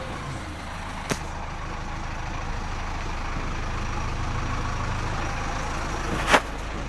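JCB backhoe loader's diesel engine running steadily as the machine drives slowly along a paved street. A short sharp knock comes about a second in, and a louder one near the end.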